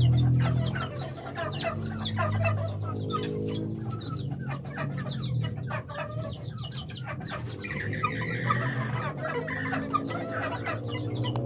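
Young Bangkok game chickens clucking, many short calls in quick succession, with a longer, higher call about eight seconds in.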